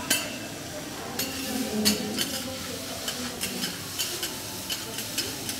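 Metal spatulas clacking and scraping on a flat-top griddle, about a dozen irregular sharp clicks, over a steady sizzle of noodles and vegetables frying on the hot steel.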